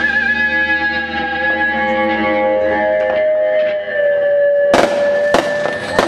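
Amplified electric guitar holding long sustained notes with vibrato, the band's last chord ringing out. A few sharp drum hits come near the end.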